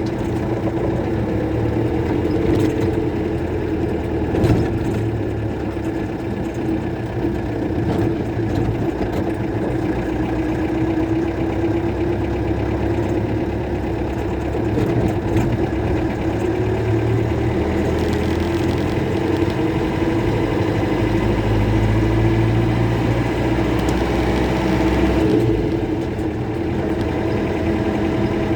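Toyota Bandeirante's Mercedes-Benz OM-314 four-cylinder diesel engine running steadily, a light diesel rumble. For a few seconds in the second half its deep low end grows heavier, then settles back.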